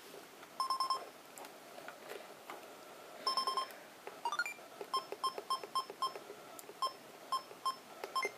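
Sony Mavica MVC-FD90 digital camera beeping. A quick run of beeps comes twice in the first few seconds while the camera shows a disk-full warning. After that come single short beeps a few tenths of a second apart, with faint button clicks, as its menu buttons are pressed.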